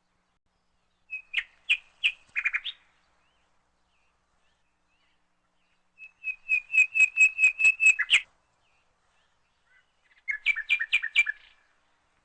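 A bird chirping in three runs of rapid, repeated high chirps, each lasting one to two seconds, with silent pauses between the runs.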